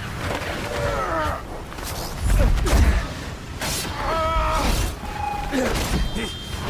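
Action-film soundtrack: men grunting and yelling in strain over a continuous rush of wind, with a heavy low thump a little over two seconds in.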